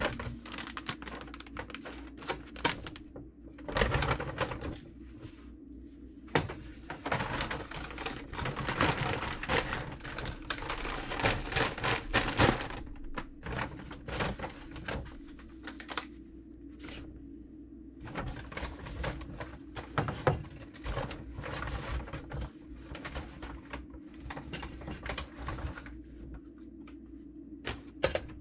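Groceries being handled and set down on an electric stovetop: packaging rustling and crinkling, with knocks as boxes, cans and cartons are put down on the stove. The rustling is densest about a quarter to halfway through, and a low steady hum runs underneath.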